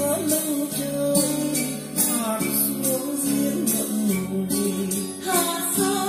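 A song with a singing voice and guitar accompaniment, played back from a reel-to-reel tape deck through hi-fi loudspeakers.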